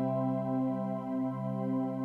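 Soft background music: sustained keyboard notes ringing over a gently pulsing low accompaniment, with no new notes struck.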